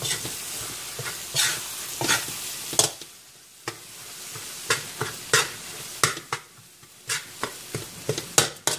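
Corned beef sautéing in a pan, sizzling while a cooking utensil stirs it with repeated scraping and knocking strokes against the pan. The sizzle drops off about three seconds in.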